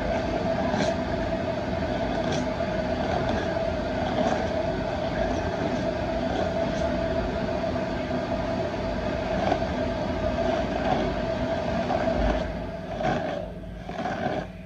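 A steady mechanical whir with a constant hum that drops away about two seconds before the end.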